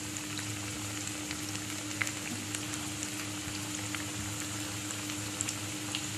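Spinach and potato pakoras in gram-flour batter deep-frying in hot oil: a steady sizzle with scattered small crackles and pops.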